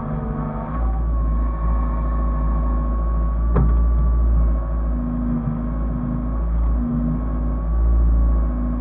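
Hyundai excavator's diesel engine running with a deep steady rumble and a steady high whine, a lower tone rising and falling in level as it works. A single sharp knock about three and a half seconds in.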